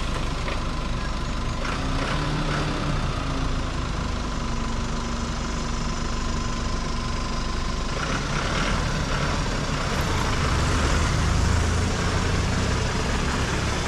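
Vehicle engines running at low speed as a pickup truck pulls slowly out over a dirt drive. Toward the end a second, heavier engine grows louder as an off-road utility vehicle approaches.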